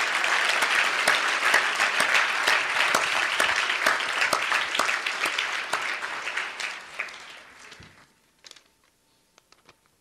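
Audience applauding, fading out about three-quarters of the way through, followed by a few faint clicks.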